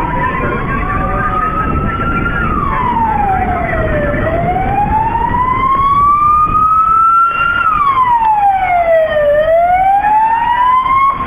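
Emergency vehicle siren wailing, its pitch slowly rising and falling, about two full up-and-down cycles, over a dense low background noise.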